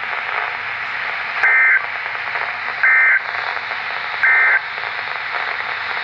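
NOAA Weather Radio receiver sounding the Emergency Alert System end-of-message code: three short bursts of screeching two-tone digital data, about a second and a half apart, over steady radio hiss. The bursts mark the end of the severe thunderstorm warning broadcast.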